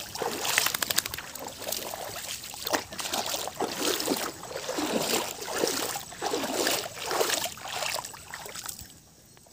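Water splashing and sloshing in a shallow stream, in a run of repeated strokes about every half second, dying away near the end.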